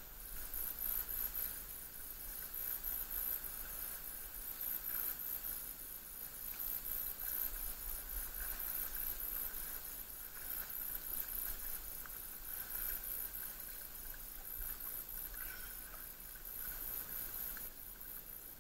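Kayak paddle strokes dipping and swishing through calm sea water, swelling about every two seconds, over a steady high-pitched hiss.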